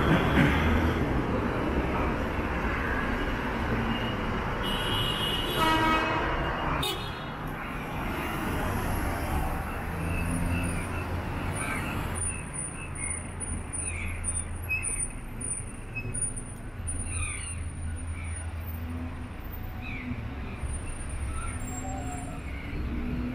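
Light city traffic passing on a wet road, with one vehicle horn toot about five seconds in.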